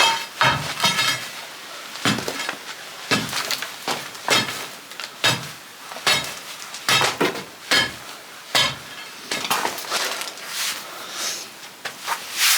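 Steel pry bar clanking and scraping against old stone flagstones as it is worked under a thick hearth stone, a dozen or so irregular strikes.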